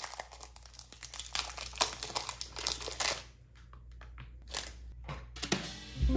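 A KitKat wrapper being crinkled and torn open by hand, a dense crackle for about three seconds that thins to scattered rustles and light taps as the chocolate bars are set down on a plastic tray. Music starts right at the end.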